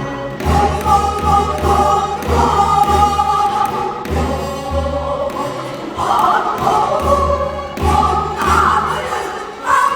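Korean traditional folk singing performed live, voices holding long, wavering notes over a steady low drum beat.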